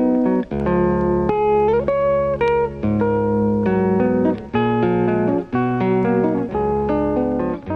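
Background music: a plucked guitar playing a tune of changing chords, with short gaps between some of the phrases.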